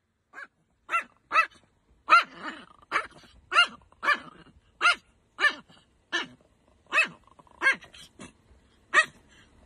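Chihuahua barking over and over, a string of short, high barks at about one and a half a second.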